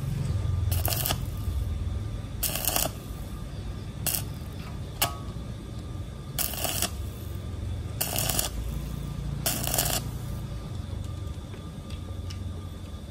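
Stick (arc) welding in short dabs: about six brief crackles of the electrode's arc, one every second or two, stopping about three seconds before the end, over a low steady hum.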